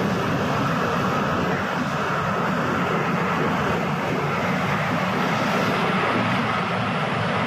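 A steady, even drone of vehicle noise, with a faint steady whine coming in about a second in.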